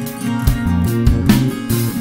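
Song's instrumental passage before the vocals: strummed acoustic guitar over sustained bass notes, with regular drum strokes.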